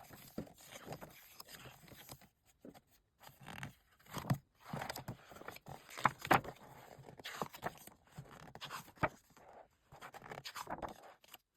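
Glossy photobook pages being turned and handled one after another: soft irregular swishes and light taps, the loudest about four and six seconds in.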